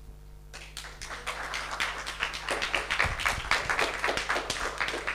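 Audience applauding: many hands clapping, starting about half a second in and growing louder.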